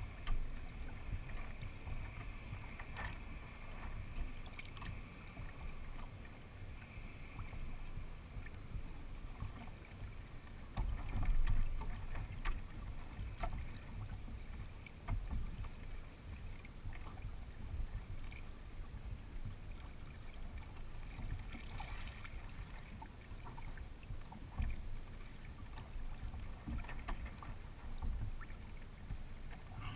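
Water gurgling and splashing along the hull of a Hobie Adventure Island trimaran kayak moving slowly through calm water, over a steady low rumble with scattered small knocks.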